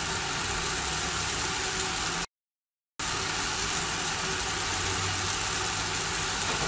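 Steady hiss with a low hum under it, like a running fan, cut by a dead silence lasting less than a second about two seconds in.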